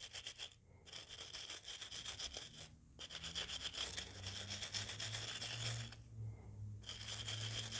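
Small cleaning brush scrubbing carbon fouling off a revolver frame with the cylinder removed: quick back-and-forth scratchy strokes, pausing briefly three times.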